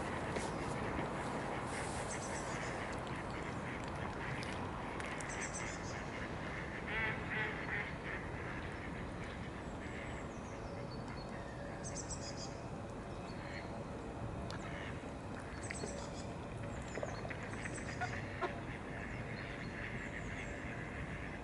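Mallard ducks calling in short bursts every few seconds, over a steady background noise.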